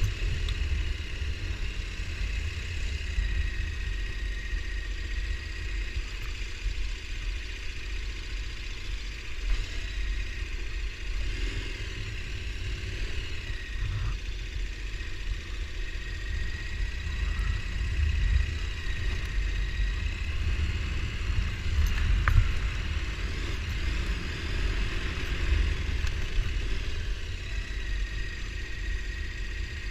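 ATV engine running steadily during a trail ride, with a faint steady whine over a strong, fluttering low rumble.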